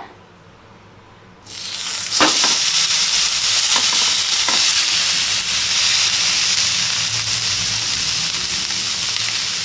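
Marinated whole fish laid into a hot, oiled cast grill pan: the oil starts sizzling suddenly about a second and a half in and keeps up a loud, steady frying sizzle, with a few faint clicks early in the sizzle.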